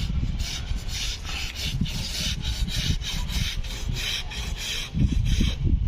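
Rapid rasping scrapes, about four strokes a second, of a hand tool working in a building joint as it is filled with waterproofing sealant, over a low rumble.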